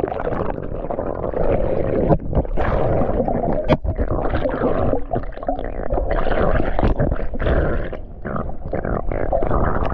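Muffled underwater sound from a camera submerged in a swimming pool: a dense churning rumble of moving water and air bubbles as a swimmer dives and swims along underwater, with many short knocks and gurgles through it.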